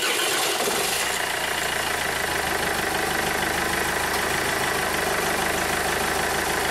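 Car engine that has just started, after cranking on a weak battery that dips to about 8 or 9 volts, running at a steady idle. Its sound changes slightly in the first second, then holds even.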